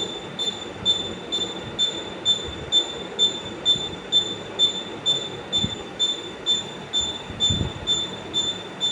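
A high-pitched squeal pulsing in an even rhythm, about two squeaks a second, over a low rumbling noise.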